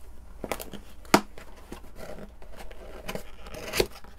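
A small cardboard box being opened by hand: paper and flaps rubbing, with a few sharp clicks, the sharpest about a second in and another near the end.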